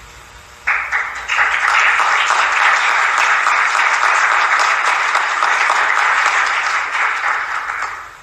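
Audience applauding, starting suddenly about a second in, holding steady and dying away near the end.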